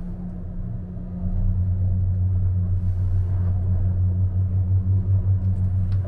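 Low, steady rumble of a gondola cable-car cabin running along its cable, growing louder about a second and a half in.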